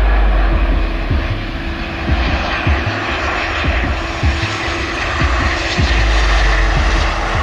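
Jet engines of a Boeing 737-800 on short final, a steady loud rush of engine and airflow noise with a low rumble as the airliner flares and touches down.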